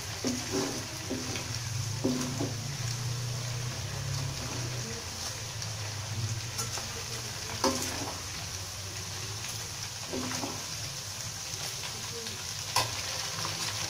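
Oil sizzling steadily as chicken and grated galangal deep-fry in a stainless steel wok. A metal ladle stirs through the oil and knocks against the pan a few times.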